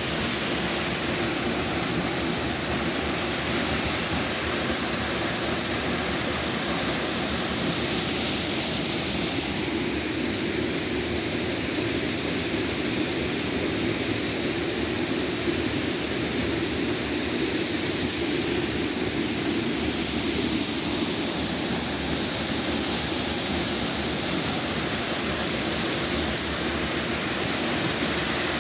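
Waterfall pouring into a river pool, a steady, even rush of falling water.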